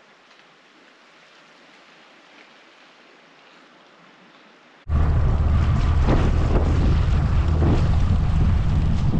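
Faint open-air hush for about five seconds, then a sudden cut to loud wind rumbling on the microphone with water splashing, aboard a small boat on choppy sea.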